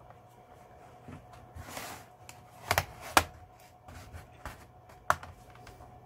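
Hands handling a laptop's plastic base cover: a short rustle, then two sharp clicks close together and one more a couple of seconds later.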